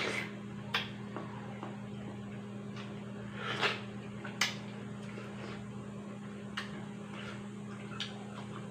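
Close-up eating of a juicy melon slice: a wet bite and slurp at the start and again about three and a half seconds in, with scattered lip smacks and mouth clicks in between. A steady low hum lies under it all.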